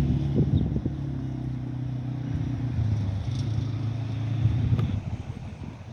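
A vehicle's motor running with a steady low hum, dropping away about five seconds in.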